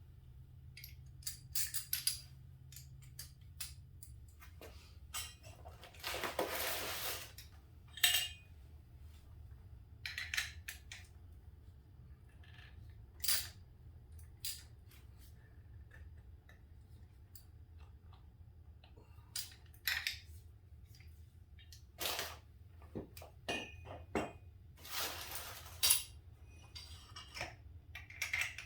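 Scattered metallic clinks and clatter of a wrench and hand tools being fitted and worked on the bolts of a Harley-Davidson front fork, with a couple of longer rasping sounds along the way.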